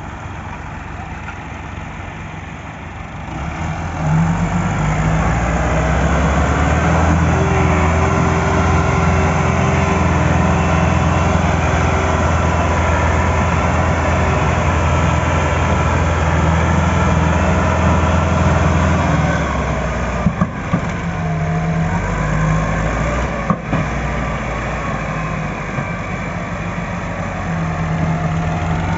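Massey Ferguson 385 tractor's four-cylinder diesel engine running steadily under load as it pulls a heavily loaded sugarcane trailer. It grows louder about four seconds in as it draws near. Two brief knocks come in the second half.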